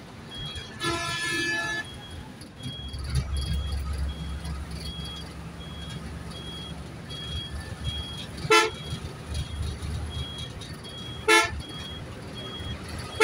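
Vehicle horn sounding for about a second near the start, then two short horn toots later, over the low rumble of engine and road noise while driving in traffic on a bridge. A faint high beep repeats about twice a second throughout.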